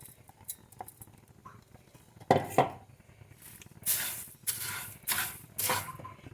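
A utensil stirring dry-roasting rice, spices and leaves in a pan: two sharp knocks against the pan a little over two seconds in, then about four scraping strokes.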